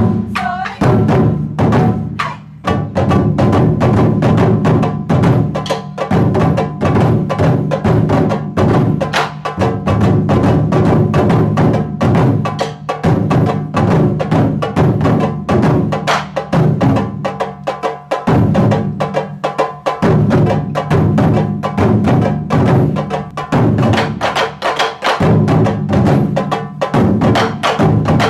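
Taiko drum ensemble playing a fast, dense rhythm: deep drum strokes packed closely together, mixed with sharp clicking strikes.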